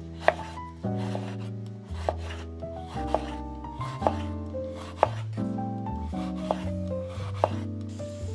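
Background music with a slow melody and bass line, over sharp knocks from a kitchen knife chopping on a cutting board, at irregular intervals roughly once a second.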